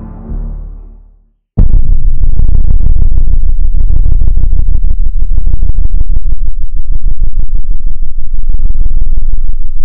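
Soft ambient music fades out. After a brief silence, a sudden, very loud distorted electronic drone sets in: a heavy low rumble with rapid crackling pulses and a faint high steady tone. It holds, then cuts off abruptly at the end.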